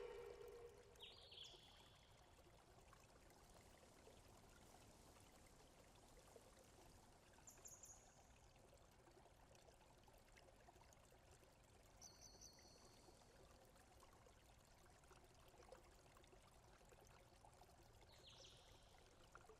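Near silence: a faint steady hiss, broken by four brief, faint high chirps spread several seconds apart.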